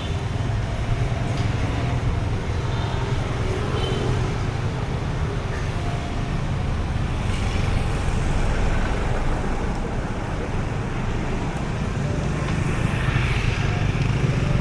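Street traffic: motor vehicles passing with a steady low rumble.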